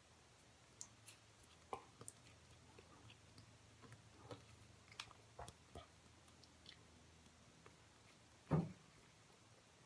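Faint handling noises of a metal bathtub drain flange being worked by hand while plumber's putty is pressed around its underside: scattered small clicks and taps, with one louder, duller thump about eight and a half seconds in.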